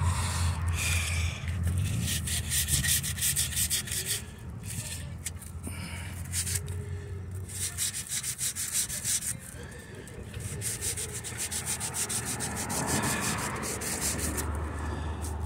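Rapid rubbing and scratching in quick repeated strokes for most of the first nine seconds, then easing off, over a low steady hum.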